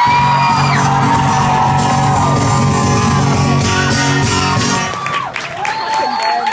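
Solo acoustic guitar ringing on a held final chord for about five seconds, with fans shouting and whooping over it; the chord stops and the crowd goes on whooping and cheering at the end of the song.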